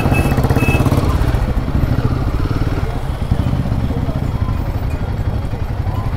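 Royal Enfield Himalayan 450's single-cylinder engine running steadily at low revs, with an even pulsing exhaust beat.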